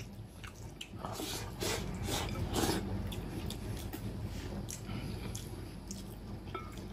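Close-up eating sounds: a man shoveling stew-soaked rice from a bowl with chopsticks, with a run of slurping bursts from about a second in to three seconds, then chewing and a few short clicks.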